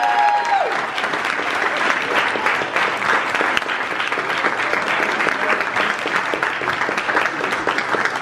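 Audience applauding, a dense steady clapping of many hands throughout.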